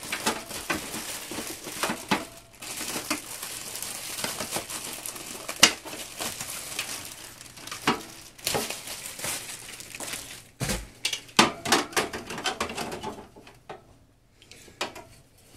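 Plastic packaging wrap crinkling and rustling as a window air conditioner's side panel is unwrapped, with sharp clicks mixed in. After about ten seconds the crinkling stops, leaving a dull thump and a run of separate clicks and knocks of the hard plastic panel being handled.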